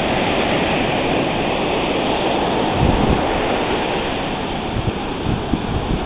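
Ocean surf breaking and washing up the sand in a steady rush, with wind gusting on the microphone.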